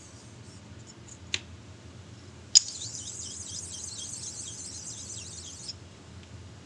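An abrasive stone rubbed in quick strokes over a metal part to knock down high spots, a high scratchy rasp lasting about three seconds. It follows a light click and then a sharp click, the loudest sound, as the stone is set on the metal.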